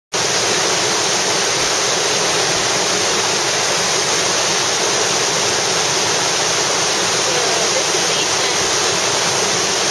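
Whitewater river rapid: a steady, loud rush of water crashing over rocks and through standing waves.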